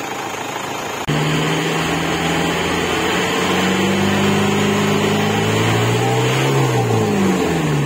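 Isuzu Panther 2.5 four-cylinder diesel engine held at high revs after a cut about a second in, its pitch creeping slightly higher, then dropping away near the end as the revs fall back. It is running on a freshly serviced and calibrated Bosch injection pump and nozzles.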